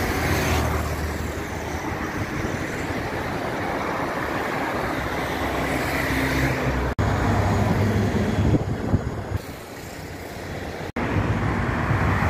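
Road traffic on a busy multi-lane avenue: a steady stream of cars passing with engine and tyre noise. The sound drops out for an instant twice, about seven and about eleven seconds in.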